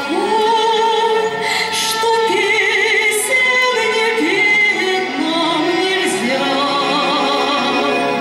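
A woman singing a slow song into a handheld microphone, holding long notes with a clear vibrato.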